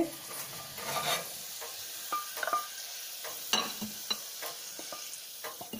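Butter sizzling faintly in a small stainless-steel saucepan while a wooden spatula scrapes and knocks against the pan a few times, pushing fried garlic cloves out onto a plate.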